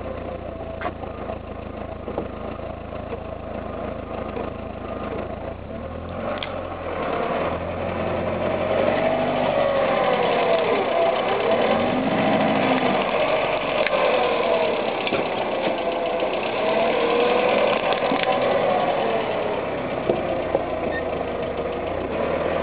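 A car engine running at idle while the car rolls slowly over the camera position. It grows louder about eight seconds in, as the car's underside passes overhead, and a wavering whine rises and falls in its sound. A couple of faint clicks come in the first seven seconds.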